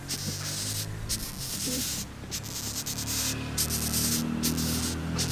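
Dry scratching and rustling in short runs broken by brief gaps, over a low steady hum that grows stronger about three seconds in.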